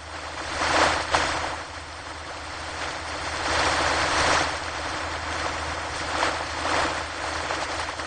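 Ocean surf: waves breaking and washing up a beach. A wave rushes in about a second in and a longer one from about three and a half to four and a half seconds, over a steady wash of water between them.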